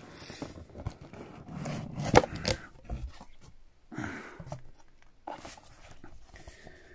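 Cardboard subscription box being opened by hand: the lid scrapes and comes off with a sharp click about two seconds in, followed by rustling and scuffing as the stiff printed card inside is picked up.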